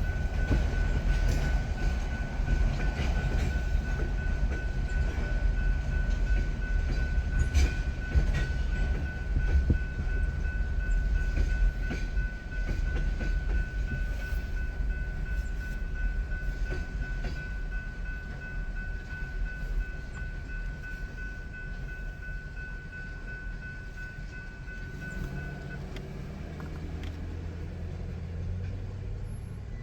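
Union Pacific local freight train rolling through a grade crossing, a low rumble with scattered clicks of wheels over the rails, slowly fading as it moves away. A steady high whine runs alongside and cuts off about four seconds before the end, and a low engine hum comes in near the end.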